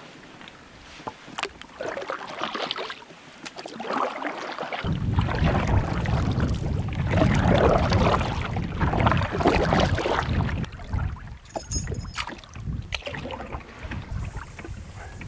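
Canoe paddles dipping and pulling through lake water, with a splash and swish at each stroke. From about five seconds in, wind buffets the microphone with a steady low rumble under the paddling.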